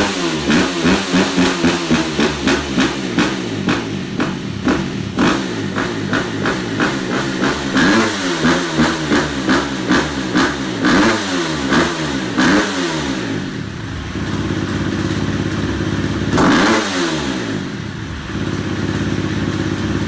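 Husqvarna FE 366 single-cylinder four-stroke dirt bike engine running on a dyno and being revved, first in rapid short throttle blips, then in a few slower rises and falls with one bigger rev about sixteen seconds in, while its throttle openings and ignition curves are tuned.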